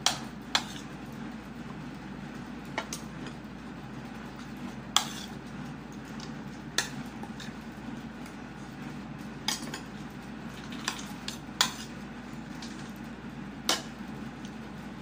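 Eating utensils clinking against a plate in short, sharp, irregular clicks, about nine in all, over a steady low hum.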